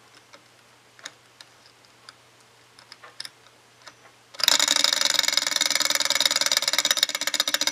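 Small Stirling model engine, a hot-air engine heated by an alcohol burner: a few scattered light clicks as the flywheel is worked by hand, then about four and a half seconds in it gets going and runs with a loud, rapid clatter of clicks.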